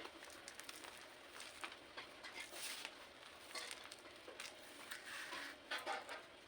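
Pink chalk blocks coated in cornstarch being crushed: quiet, irregular crunching and crackling, with louder crunches about a third of the way in and again near the end.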